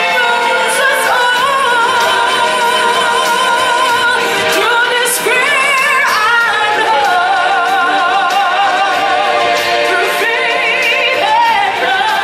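Stage-show singing over a full musical backing, with singers holding long notes with a marked vibrato.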